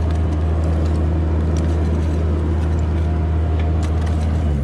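Excavator's diesel engine running steadily, a low hum that steps down in pitch and eases off near the end. A few small clicks of stones and dirt being raked by a gloved hand.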